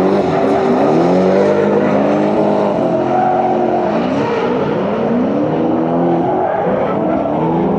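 Car engine revving hard, its pitch rising and falling again and again.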